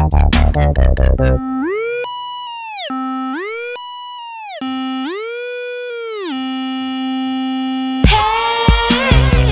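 Electronic dance music breaks down to a lone synthesizer tone that slides up an octave, holds, and slides back down, three times over. The beat cuts out about a second in and the full track comes back near the end.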